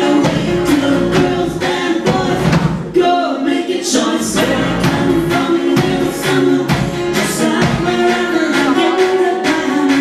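Live band playing a song, with singing over a steady beat.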